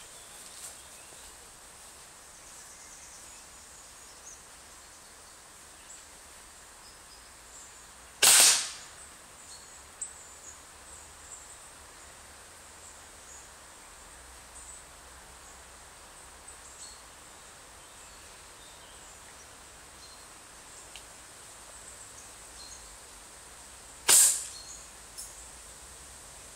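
Homemade slingshot fired twice, about sixteen seconds apart, each shot a short, sharp, loud release.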